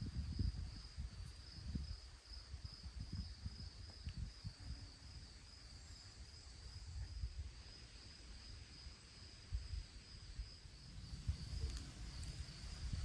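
Insects trilling steadily in one high, even pitch, with a low rumbling noise that comes and goes underneath.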